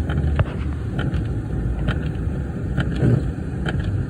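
Car running with a steady low rumble inside the cabin, with a short click repeating about once a second.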